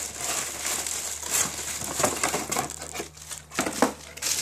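Clear plastic bag around a new angle grinder crinkling and rustling as the tool is handled and unwrapped from its cardboard box, with irregular sharper crackles throughout.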